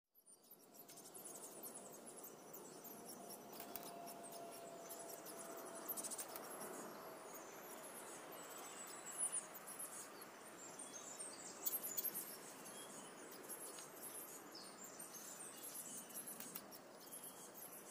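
Faint outdoor ambience of small songbirds chirping and twittering, many short, high-pitched calls over a soft steady hiss, a few of them a little louder.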